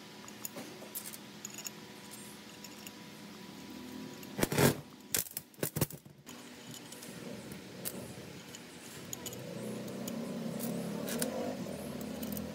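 Metal tools and differential parts clinking and knocking on a workbench, with a quick run of louder metallic knocks about four and a half seconds in. A low rumbling sound builds near the end.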